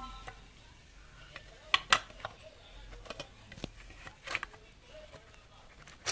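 Scattered sharp clicks and taps of hard plastic parts being handled and fitted together as a Bluetooth speaker's housing is reassembled, with a pair of louder clicks about two seconds in.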